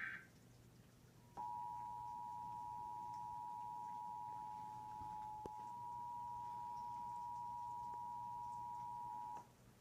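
Emergency Alert System attention signal for a National Weather Service severe thunderstorm warning: two steady high tones sounding together, played through a TV's speaker. It starts about a second and a half in, lasts about eight seconds and cuts off sharply.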